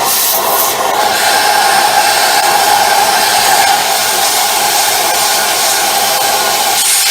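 Loud, steady rush of motor-driven air with a constant hum in it, as built-up dirt is being cleared out of a clogged vacuum cleaner passage.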